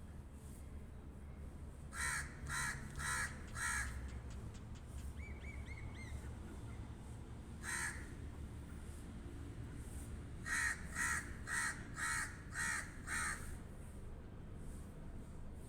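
A crow cawing: a run of four caws, a single caw a few seconds later, then a run of six caws.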